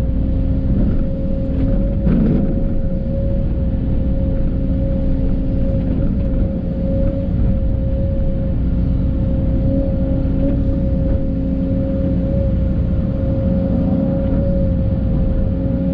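Case CX210 excavator running steadily under load while digging, its diesel engine rumbling under a constant whine from the hydraulics.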